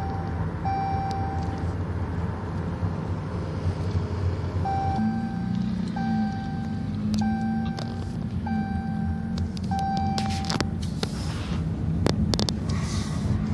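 A car running on the road, heard from inside the cabin as a low engine and road drone. Over it an electronic warning chime repeats about once a second. The chime pauses for about three seconds after the first beep, then stops near the end, where a few clicks and a rush of noise follow.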